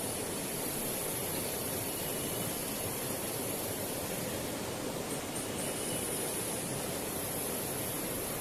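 Steady rush of flowing river water, with a steady high-pitched hiss above it that breaks off briefly about five seconds in.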